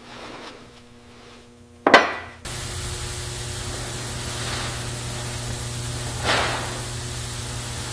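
Two knocks of metal engine parts being handled on a workbench, each with a short ring: a sharp, loud one about two seconds in and a softer one about six seconds in. A steady hiss and hum sets in abruptly just after the first.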